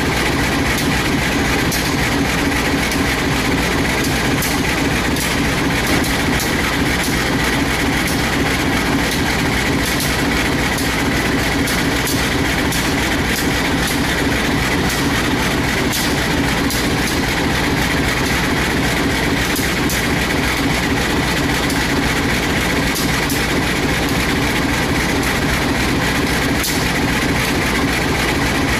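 Diesel locomotive engine running steadily at low power, a constant hum with a steady high whine and faint ticking over it.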